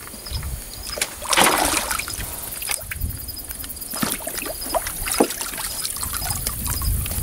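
A Border Collie splashing and sloshing about in a water-filled stock tank as it paws and noses in the water, with one loud splash about a second and a half in and smaller splashes after it.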